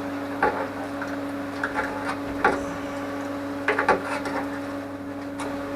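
A steady machine hum with scattered light clicks and taps at irregular intervals, a quick cluster of them a little over halfway through.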